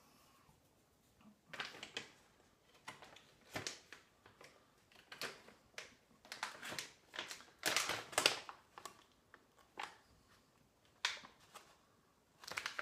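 Plastic jerky bag crinkling and rustling in irregular bursts as it is opened and handled, starting about a second and a half in.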